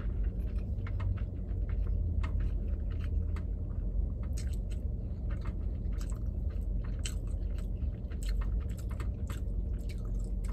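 A person chewing sushi, with many short wet mouth clicks and smacks at an irregular pace, over a low steady hum.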